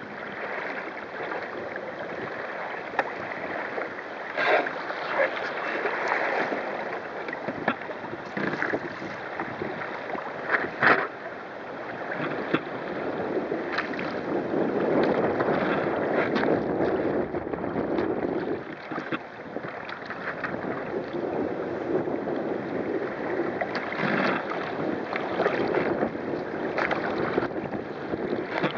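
Water rushing and splashing along the wooden hull of a sailing kayak moving fast through choppy water, with strong gusty wind buffeting the microphone. There are sharper splashes about 4 and 11 seconds in.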